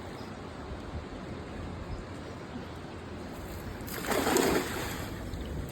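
Steady rush of river water, with a brief splashing rush about four seconds in as a cast net hits the water.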